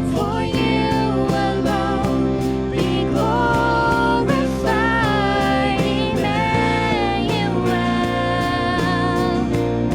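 Praise band playing a worship song with a steady beat, held bass notes and a lead melody line.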